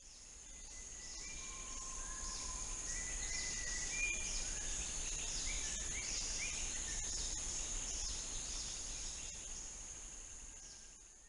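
Rainforest ambience: a steady high-pitched insect drone with birds whistling short notes and repeated falling calls over it, fading in and then out.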